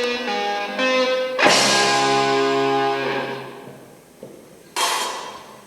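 Guitar playing a few single notes, then a strummed chord about a second and a half in that rings out and fades, and a short sharp hit near the end.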